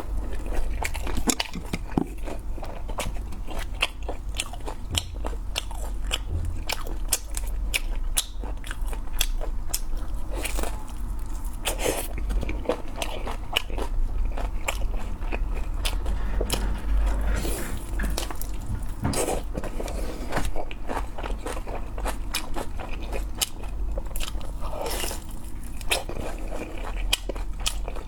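Close-miked eating: a person biting and chewing crunchy food, with many quick crunching clicks.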